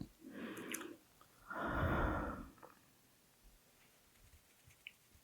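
A person's slow, deep breath: an inhale, then a louder, longer exhale that starts about a second and a half in, followed by a few faint mouth clicks.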